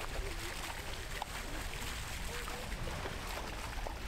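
A catamaran's hull moving through open sea: a steady rush and splash of water along the bow.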